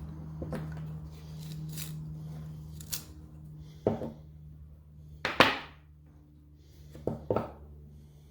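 Sharp clicks and knocks of hand tools and metal parts being handled, about seven in all, the loudest a ringing knock about five and a half seconds in, over a steady low hum.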